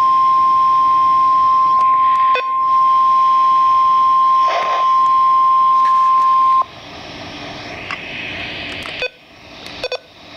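Emergency alert attention tone for a severe thunderstorm warning: one loud, steady, single-pitch tone, the 1050 Hz warning alarm used on NOAA Weather Radio. It cuts off abruptly about two-thirds of the way through. Quieter radio hiss with a few clicks follows.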